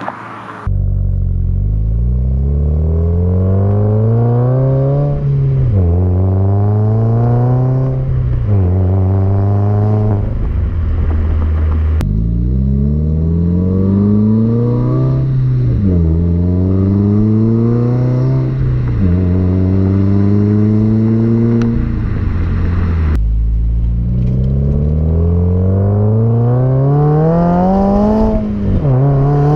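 2015–2016 Subaru WRX turbocharged flat-four with an ETS cat-back exhaust accelerating through the gears. The engine note climbs, then drops sharply at each upshift, several times over. About two-thirds of the way through it cuts abruptly to another run through the gears.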